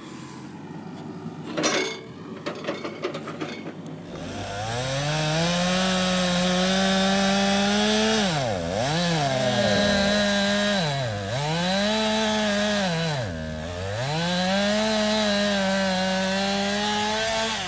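Chainsaw revving up about four seconds in and running at high speed, its pitch dropping several times as the chain is loaded in the wood and climbing back between cuts. A few knocks come before it starts.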